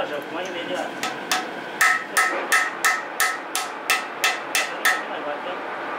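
Hammer striking a round steel piece held in the camshaft bore of a D115 tractor engine block, about a dozen quick ringing metal blows at roughly three a second, driving the part in. The blows stop about five seconds in.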